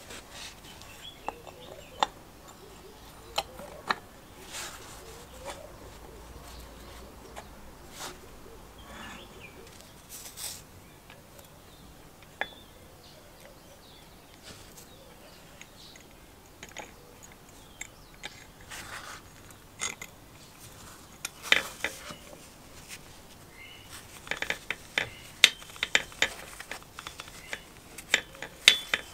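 Scattered small metallic clicks and taps of hand work with a screwdriver as the bearing retainer bracket is fitted and screwed into the motor end housing of a vintage Sprayit diaphragm airbrush compressor. The clicks bunch into a quick run over the last few seconds.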